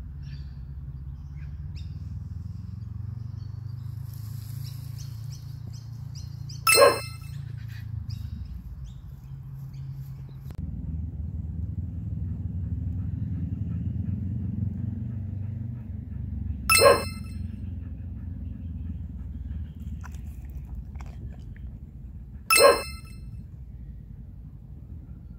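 A steady low rumble, broken three times by a sharp, bright metallic ding: about seven seconds in, again ten seconds later, and a third time near the end.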